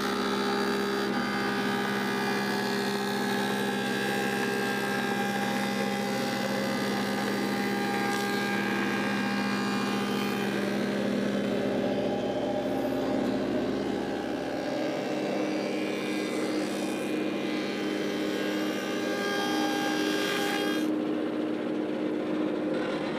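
Woodmaster thickness planer running steadily with a motor hum as its knives plane a rough black walnut board, with a hissing cutting noise. Near the end the cutting noise stops and the motor runs on without load.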